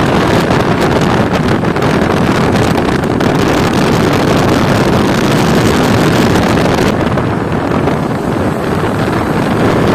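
Wind rush on the microphone mixed with a motorcycle engine running at road speed, a steady loud rushing noise with no distinct engine note standing out.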